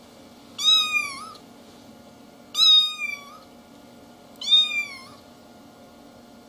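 A young kitten mewing: three high-pitched mews about two seconds apart.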